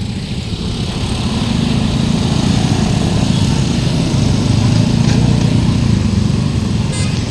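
Low engine rumble from passing vehicles, swelling over the first couple of seconds and then holding steady, with a couple of faint clanks.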